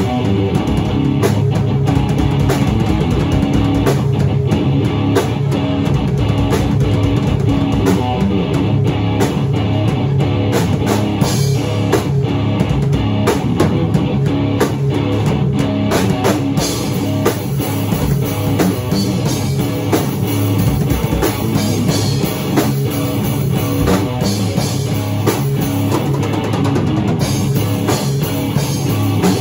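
Rock music: a guitar playing a riff over a drum kit, loud and continuous.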